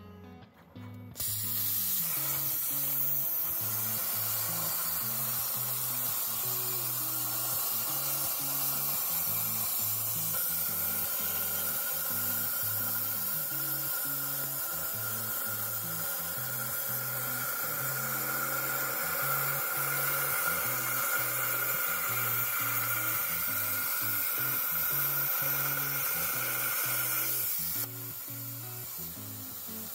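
Plasma cutter torch on a CNC table cutting steel plate: a loud, steady hiss of the plasma arc and its air that starts suddenly about a second in and cuts off near the end, with a higher steady tone joining about a third of the way through.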